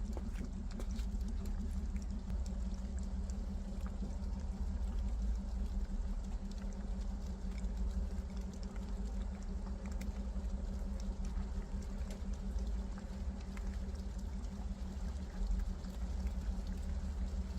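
Rain falling: a steady wash of water with many small drops ticking irregularly, over a constant low rumble.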